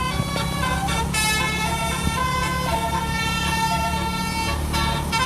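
Basuri multi-tone horn playing a telolet-style tune: held notes that shift in pitch every second or so, over a steady low engine hum.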